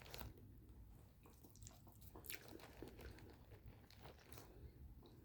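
Faint, irregular crunching and clicking from a dog chewing a small food reward.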